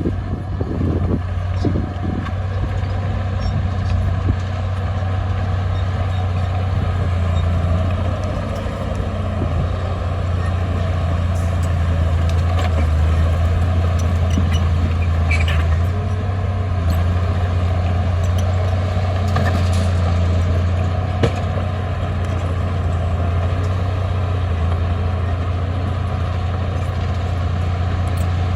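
Heavy diesel earthmoving machinery running steadily, a constant low engine drone with a few faint clanks and knocks.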